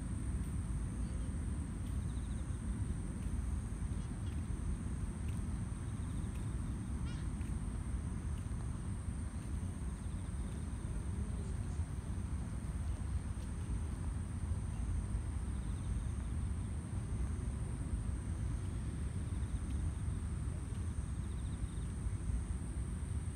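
Steady night-time outdoor background: a low rumble, with a faint continuous high-pitched insect drone over it.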